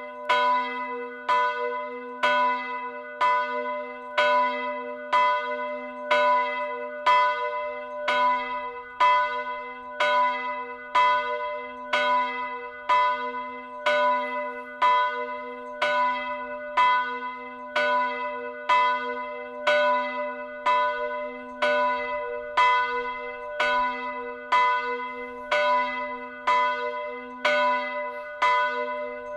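Automated swinging church bell, about 350 kg and tuned to B (h'), cast in 2000 by Janusz Felczyński of Przemyśl. Its clapper strikes about once a second, each stroke ringing on over a steady low hum.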